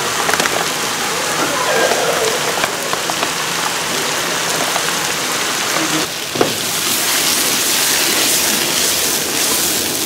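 Pork and vegetables sizzling in a frying pan on a gas burner while sauce and miso are stirred in with chopsticks. The sizzle is a steady hiss that grows louder and brighter about six and a half seconds in.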